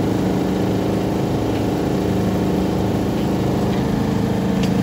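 Refrigerated display case running with a steady, even mechanical hum, with a few faint ticks.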